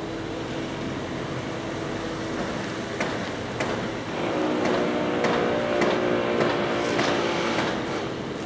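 An engine running, growing louder from about four seconds in and easing off near the end, with several sharp knocks scattered through it.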